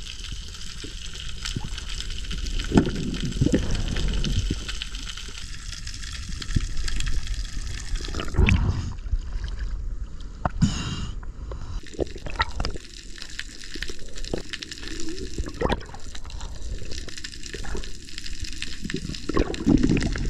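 Underwater sound picked up by a diver's camera: water sloshing and gurgling around it, with scattered sharp clicks and a few low surging swells.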